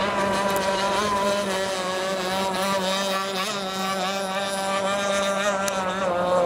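Small two-stroke engine of a radio-controlled racing boat running at full throttle as the boat planes across the water: a steady high-pitched drone that holds its pitch, wavering slightly as the hull skips.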